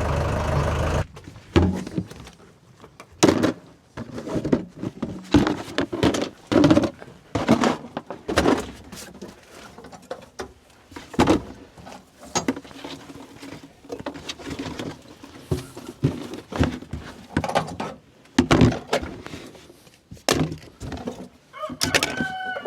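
An engine running steadily cuts off about a second in, followed by irregular knocks, thuds and clatters of objects being handled and set down.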